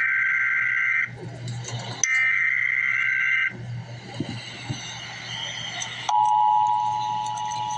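Emergency Alert System header: one digital SAME data burst ends about a second in, and another runs from about two to three and a half seconds. After a pause, the steady two-tone EAS attention signal starts about six seconds in.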